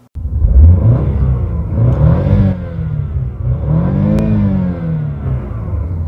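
Car engine free-revved twice in park, each rev rising then falling back in pitch, then settling toward idle.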